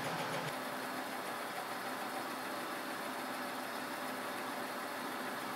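Rockwell milling machine running, its horizontal spindle turning a cutter that is milling aluminium vise-jaw stock; a steady machining whir whose lower hum drops away about half a second in.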